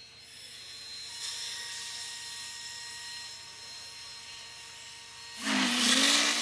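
Steam whistle of Union Pacific No. 844, a 4-8-4 steam locomotive, sounding one loud chord-like blast about a second long near the end, over a faint steady hiss.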